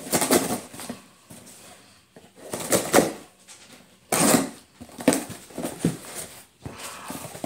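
A cardboard shipping box being opened by hand: tape and cardboard torn, scraped and pulled apart in several short bursts.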